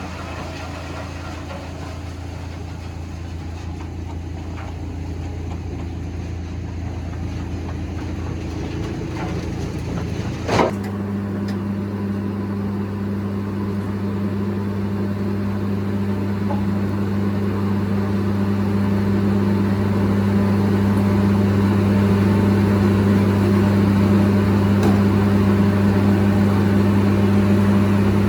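A machine's engine or motor running with a steady hum. About ten seconds in a sharp knock sounds, after which the hum settles into a stronger, deeper steady drone that slowly grows louder.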